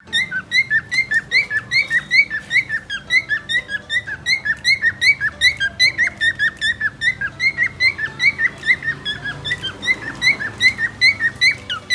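Cockatiels chirping, a quick run of short rising-and-falling chirps repeated about four times a second.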